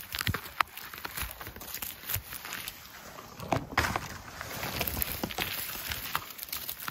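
Close rustling and crackling of moss, grass stems and forest-floor litter, with scattered sharp twig snaps, as gloved hands reach in and pick mushrooms. A louder burst of rustling comes a little past halfway.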